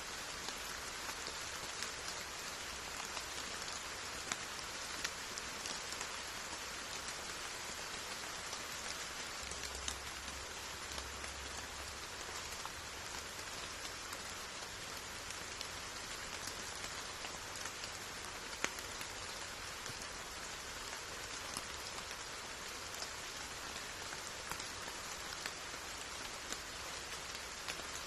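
Steady rain falling, an even hiss with scattered louder drop hits.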